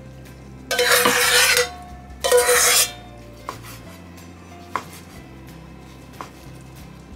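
A metal pot scraped twice as glass-noodle salad is tipped out of it, each scrape with a ringing metal tone. After that, a kitchen knife slices through a sausage onto a wooden cutting board, giving three light knocks of the blade on the board.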